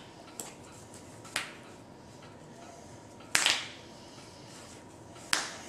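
Playing cards being handled and put down on the table: a couple of faint ticks, then two sharp card snaps about two seconds apart in the second half.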